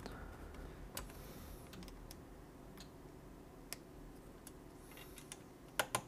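Faint, scattered small clicks and taps from handling a cable and its connector against a laptop logic board, with two sharper clicks near the end.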